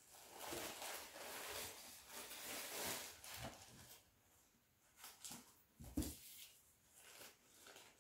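Tissue paper rustling for the first few seconds as the Chanel slide sandals are lifted out, then a few light knocks and one louder thump about six seconds in as the slides are handled.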